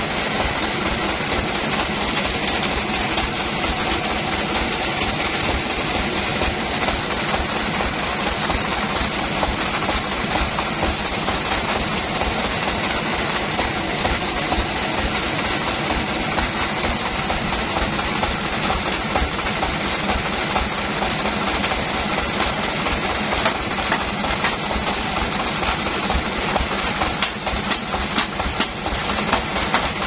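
Band sawmill running steadily without cutting: a fast low throb from the drive under a steady high whine.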